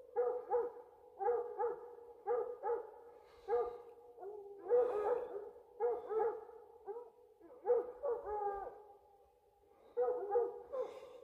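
Bobcat hounds baying in short repeated bursts, a few barks a second with brief pauses, at a bobcat they have caught.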